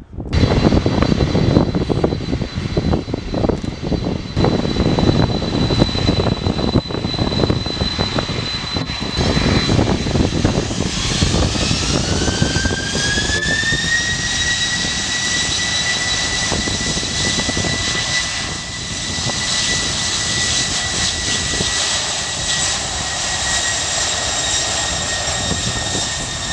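Boeing 747-400 freighter's jet engines: a rough roar with a steady high whine. About ten seconds in, a whine rises over three or four seconds as the engines spool up to takeoff thrust, then holds as a steady high-pitched whine over the roar.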